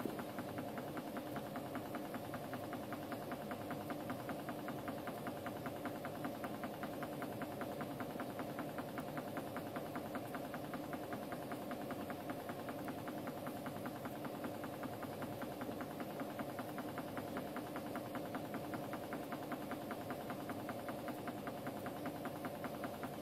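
Reptile misting system's pump running with a steady buzzing hum and a fast even pulse.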